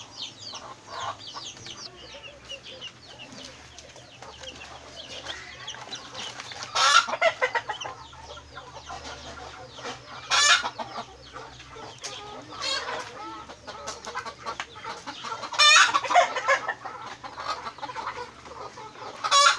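Young chicks cheeping, a steady stream of rapid high peeps. Four louder, longer calls stand out, about seven, ten and sixteen seconds in and at the very end.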